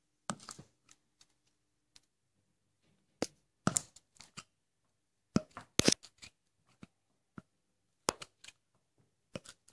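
Plastic cap of an aerosol can knocking against a painted wall and door frame in short, irregular taps, singly and in quick little clusters, as cockroaches are crushed with it; the loudest cluster comes a little past the middle.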